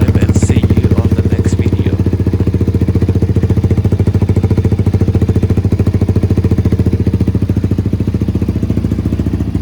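Kayo K2 230 dirt bike's single-cylinder four-stroke engine idling steadily with an even, rapid beat.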